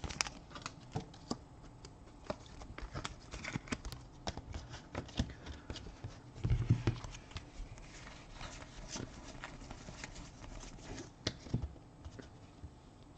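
Trading cards being handled and flipped through by hand, giving many small irregular clicks and taps of card edges against one another.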